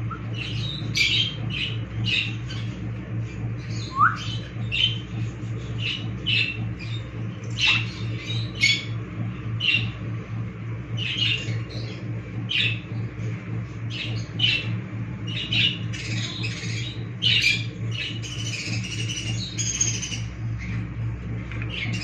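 Parrots giving short, harsh squawks one to two times a second, with a brief rising whistle about four seconds in. A steady low hum runs underneath.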